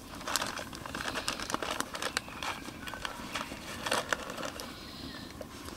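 Crinkling and rustling of a small bag of coffee beans being handled and folded shut, with scattered small clicks of the beans throughout.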